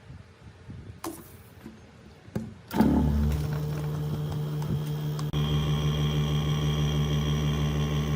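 A few light taps and clicks, then an electric workshop machine switches on about three seconds in and runs with a steady hum, which grows a little louder about two seconds later.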